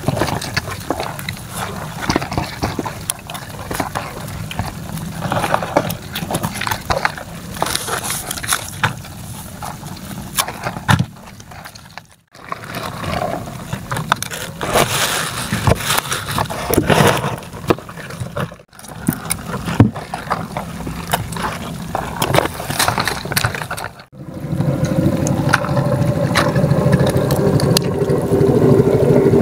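Crinkling plastic sheeting with scraping, clicking and wet sloshing as live crabs and shrimp are handled out of a trap. A steady small-engine hum comes in for the last few seconds.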